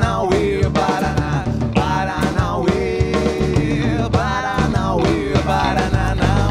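Live rock band playing: drum kit keeping a steady beat under bass, electric and acoustic guitars, with a lead voice singing over it.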